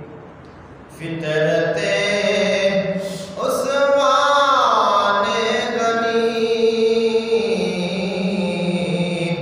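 A man singing an Urdu manqabat solo and without instruments, in long held, ornamented notes. The voice comes in about a second in after a short pause, and there is a falling run of notes near the middle.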